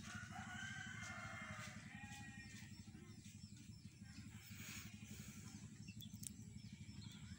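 Chick peeping faintly in a run of short, high peeps, about three a second, over a steady low hum. In the first couple of seconds there is also a longer drawn-out call.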